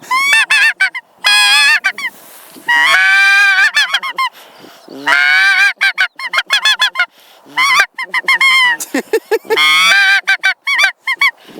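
A khrapun goose call blown in a long calling sequence: rapid short honks and clucks broken by several longer drawn-out honks, imitating feeding and calling geese.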